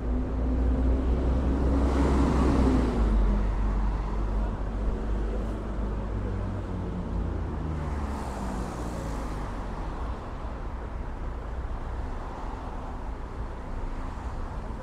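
City street traffic: a steady low rumble of vehicles, with one passing loudest about two to three seconds in, its engine tone falling slightly as it goes by.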